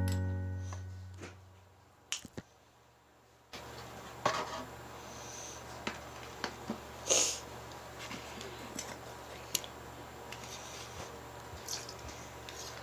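Clear slime being handled: faint scattered clicks and soft squelches over quiet room tone, after a ukulele chord dies away at the start.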